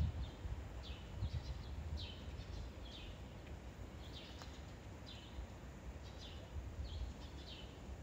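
Small birds chirping: short, high, falling chirps about once a second, some in quick pairs, over a low background rumble.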